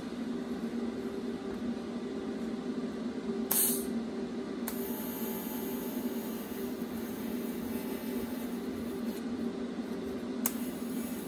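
TIG welding arc on a metal rail in a vise. A brief crackle as the arc strikes about three and a half seconds in, then a steady high hiss while the gap is filled with filler wire, over a constant low hum.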